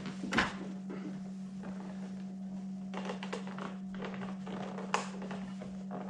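Knocks, taps and small plastic rattles as a Mach 460 door speaker in a car door is pulled on and will not come loose. A sharp knock comes about half a second in and a click near five seconds, over a steady low hum.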